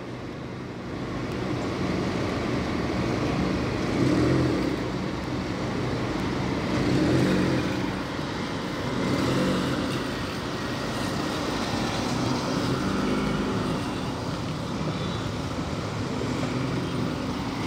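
1997 Honda Civic's four-cylinder engine running as the car is test-driven after a brake pad change, its sound swelling and easing a few times.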